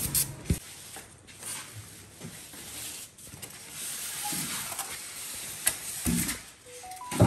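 Rustling and scraping of packing material, polystyrene and a foam wrapping sheet, as it is handled inside a large cardboard TV box, with scattered light knocks and a louder knock near the end.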